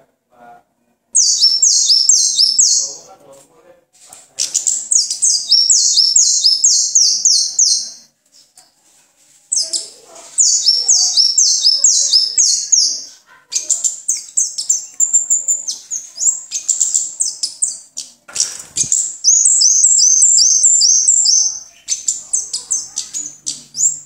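Caged songbird singing in loud phrases of rapid, high repeated chirps, each phrase lasting two to four seconds with short pauses between. A single knock sounds about three-quarters of the way through.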